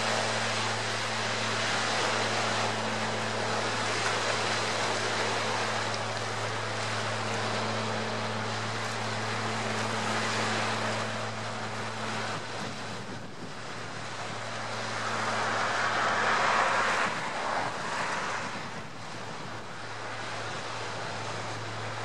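Sea water washing and rushing against a rocky shore, swelling louder about two-thirds of the way through, over a low steady hum.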